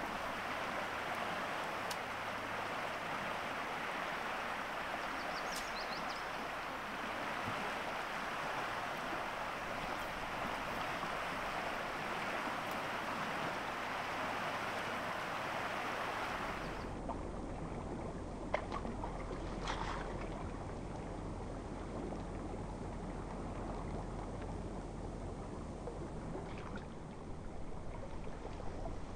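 Rushing water of a large river's current, a steady hiss-like rush. About 17 seconds in it changes abruptly to a duller, lower rushing with a low rumble and a few faint clicks.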